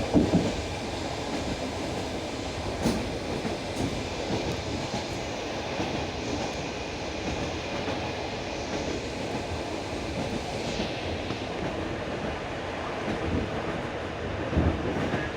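Passenger train running on jointed track: a steady rumble of the wheels, with the clack of the wheels over rail joints. Single louder knocks come just after the start, about three seconds in, and near the end.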